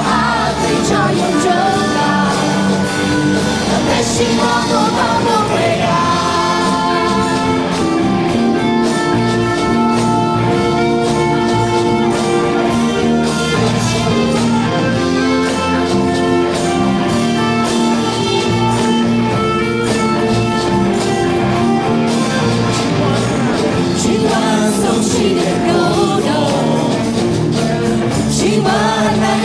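Live worship band playing a Burmese-language praise song, with a man and women singing into microphones over electric guitar and band. The singing is clearest near the start and end, and the middle is mostly held instrumental notes.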